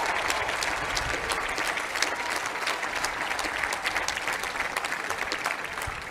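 Crowd applauding, many hands clapping densely, the applause easing slightly near the end.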